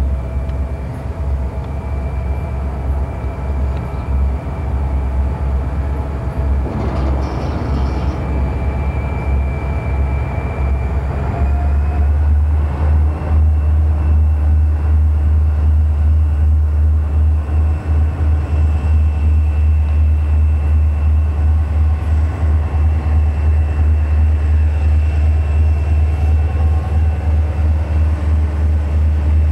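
A lashup of EMD diesel locomotives, an SD40T-2 leading SD45-type units, working a freight train: a steady low engine drone with faint steady higher whines above it, growing louder about twelve seconds in as the units draw near and pass.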